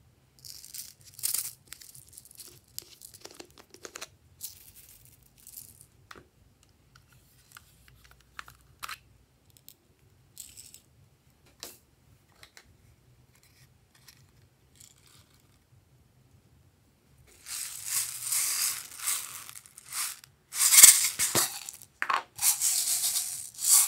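Soft, scattered rustles and crinkles as sequins and beads are dropped onto a tray of slime, then several louder rustling, crinkling bursts in the last six seconds as a plastic tub of toppings is handled and emptied.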